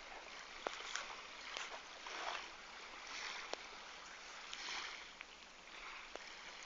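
Faint outdoor ambience: a soft, even rush with a few gentle swells, and several light clicks.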